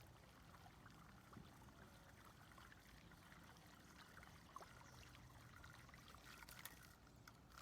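Faint water trickling and lapping, close to silence.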